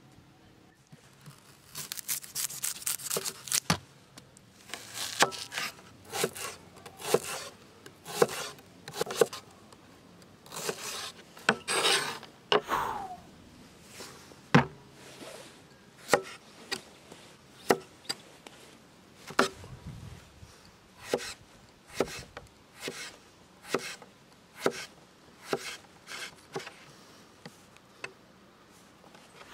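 Knife cutting vegetables on a wooden cutting board, zucchini among them. A quick run of chopping strokes comes a couple of seconds in, then single cuts about once a second, each a sharp tap of the blade on the board.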